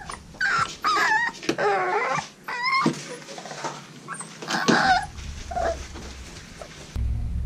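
American Bully puppy whimpering: a run of short, high, wavering whines over the first five seconds, then fainter ones. A low rumble comes in near the end.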